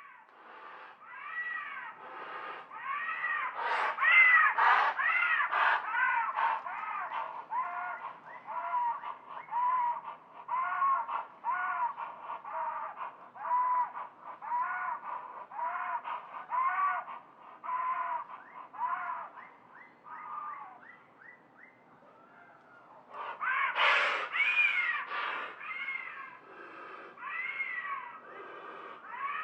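Sound-designed pterosaur (Quetzalcoatlus) calls built from goose honks and bird screeches: a long series of short, pitched, arching cries about one a second. There is a rapid run of thin chirps before a brief lull, then a louder cluster of cries.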